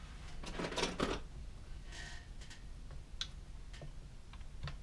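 Scraping and light clicks of a hand tool working on a metal airsoft gearbox shell as a retaining pin is pushed through. A scrape comes about a second in, a fainter one about two seconds in, then a few scattered clicks.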